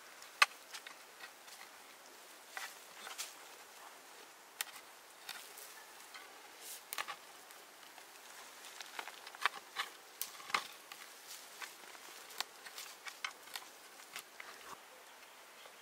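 Scattered light clicks and knocks at an uneven pace over a faint steady hiss, with one sharp click about half a second in.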